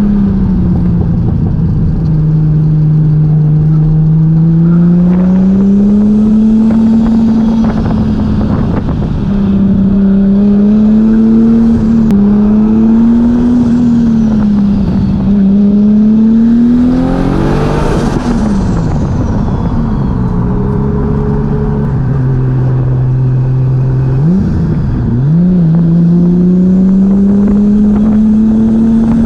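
Turbocharged 2JZ-GTE 3.0-litre straight-six in a swapped Nissan Cefiro under hard driving, its revs climbing and falling again and again. It peaks sharply past halfway, and there are quick gear changes a few seconds later.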